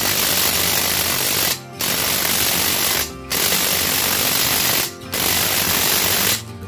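Cordless brushless impact wrench, a knock-off Makita rated 880 Nm, hammering on a large bolt through a 41 mm socket. It runs in four bursts of rapid hammering, each about a second and a half long, with short pauses between them.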